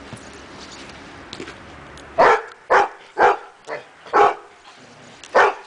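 A dog barking: a run of short, sharp barks about two a second, starting about two seconds in, with a pause of about a second before the last one.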